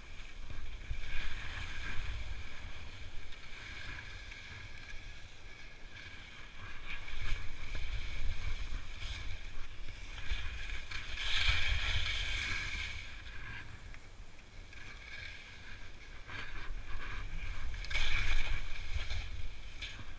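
Touring skis sliding and scraping over snow, a hiss that swells with each turn, loudest about halfway through and again near the end, over a steady rumble of wind buffeting the microphone.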